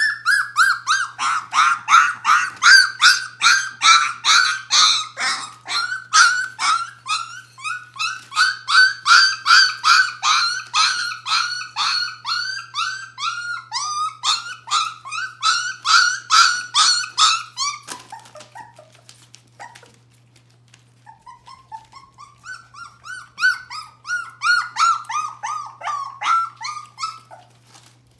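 Border Collie puppy, nearly four weeks old, yapping in a rapid run of high yips, about three a second, each dropping in pitch. The yapping stops about 18 seconds in and starts again a few seconds later.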